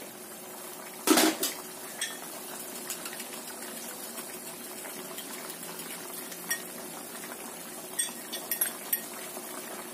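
Soup simmering in a frying pan, a steady hiss. About a second in comes a loud clink of a utensil on cookware, and a few light clinks follow near the end while beaten egg is poured into the soup.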